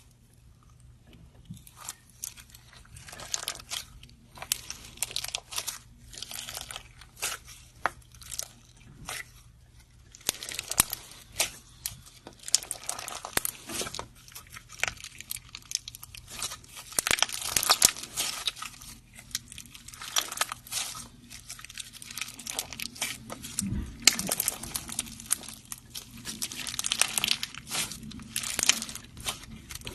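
Slime being squeezed, poked and stretched by hand, giving dense, irregular crackling and clicking sounds.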